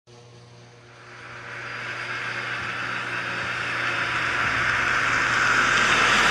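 Rushing noise that swells steadily louder over several seconds, the opening of a karaoke backing track.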